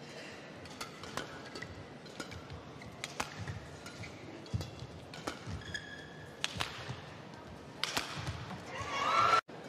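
Badminton rally: sharp cracks of rackets striking the shuttlecock at irregular intervals, with a shoe squeaking on the court partway through. Near the end the crowd reaction swells as the point is won.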